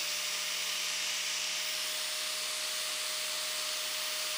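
Angle grinder fitted with a flap disc, running steadily at full speed: a steady whine over a hiss. It is being used to grind the barbs off the cut ends of quarter-inch all-thread rod.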